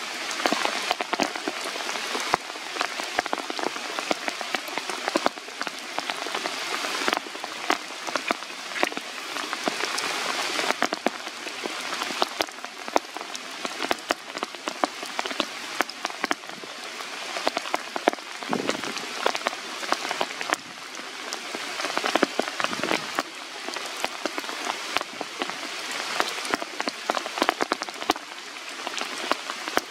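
Steady rain falling on tree leaves, with many separate drops striking close by as sharp ticks over a constant hiss.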